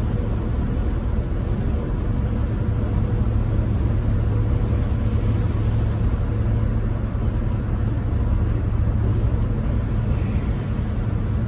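Camper van cruising at highway speed: steady engine and road noise with a constant low hum, unchanging throughout.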